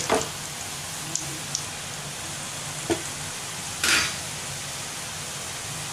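Kulkul dough curls deep-frying in hot oil, a steady sizzle, with a few light knocks and a louder clatter about four seconds in.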